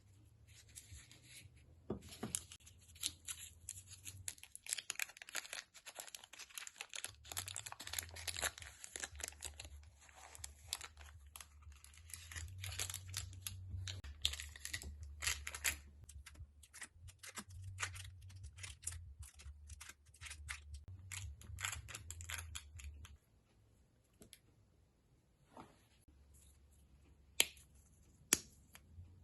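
Kitchen handling noises: irregular scraping, rustling and clicking of utensils and packaging over a low intermittent hum, going quieter about two-thirds of the way through, then a few sharp taps near the end.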